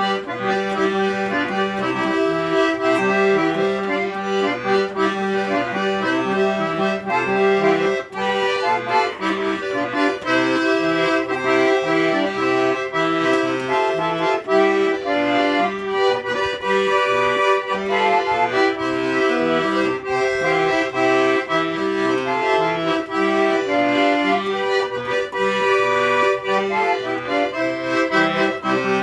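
Accordion (sanfona) playing continuously: a melody of changing notes over held lower bass notes.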